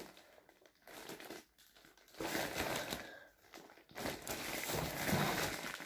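Clear plastic wrapping on a metal clothes-drying rack crinkling and rustling as the rack is handled, in several short bouts with brief pauses between them.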